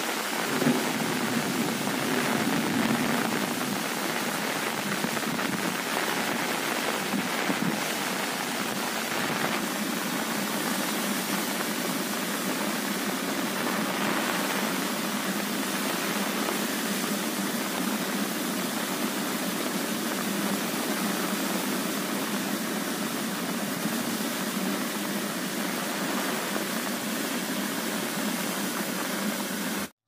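Steady rain falling, with the rush of a waterfall blended in: an even, unbroken hiss.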